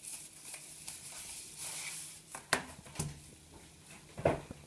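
Handling noise as a slim Bluetooth keyboard is taken from its packaging: soft rustling, then a few light knocks.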